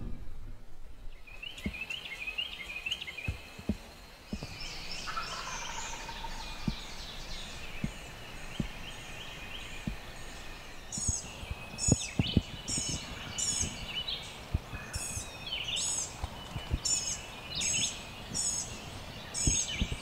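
Wild turkeys gobbling: rattling calls that fall in pitch, strongest in the first few seconds. From about halfway, another bird calls over and over in short high notes, and there are scattered soft knocks.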